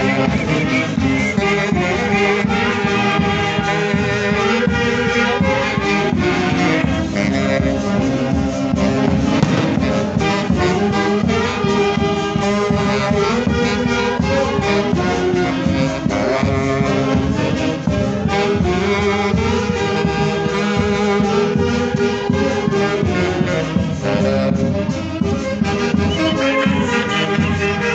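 A live band led by brass horns plays a continuous melody without a break.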